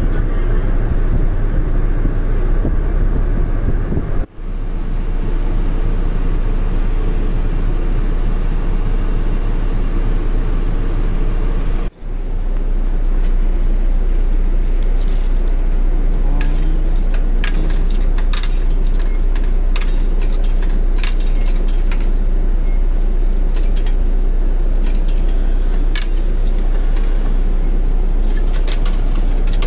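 City bus running, heard from inside the cabin as a steady low engine and road rumble. From about halfway on, light metallic rattles and clicks join it, coming from fittings around the fare box by the front door.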